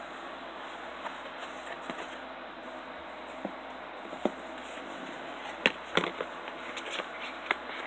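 Handling of a boxed collector's set being put back together: scattered light clicks and knocks of the pieces and cardboard box, sparse at first and thickest about six seconds in, over a steady hiss.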